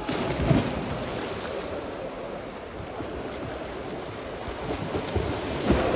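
Swimmers splashing in an indoor pool: dives off the starting blocks and freestyle strokes churning the water, a steady rush of splashing.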